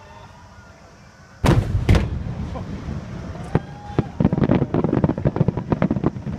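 Aerial fireworks bursting: two heavy booms about half a second apart after a quiet first second and a half, then a fast run of sharp crackling bangs.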